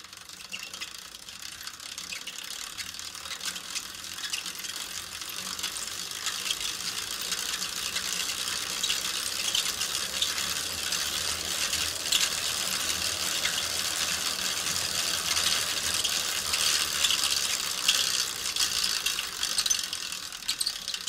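Bicycle drivetrain turning: wheel, chain and crankset giving a rapid, dense ratcheting tick, like a freewheel. It builds in loudness over the first several seconds, holds, then eases off a little near the end.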